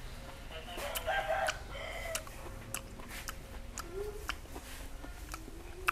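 A domestic chicken calling, with a short call about a second in and a briefer one near two seconds, over scattered faint clicks.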